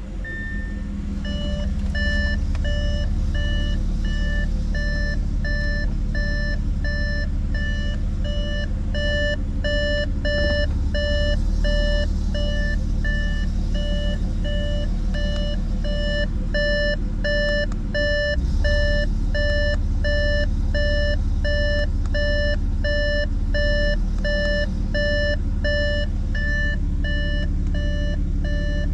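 Audi A7's electronic warning chime beeping on and off, about two beeps a second, over the low hum of the engine idling just after a push-button start. The beeping starts about a second in.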